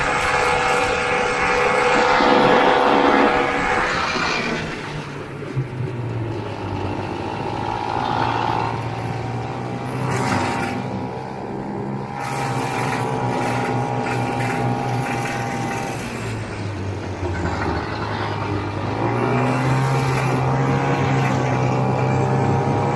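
1969 Ski-Doo Olympique's 320cc single-cylinder two-stroke engine running at speed. It eases off about four seconds in, dips again later, and picks up near the end.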